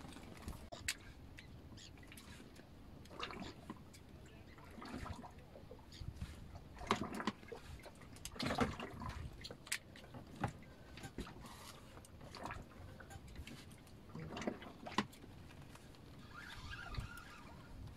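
Water lapping quietly against the hull of a small boat, broken by scattered light knocks and clicks.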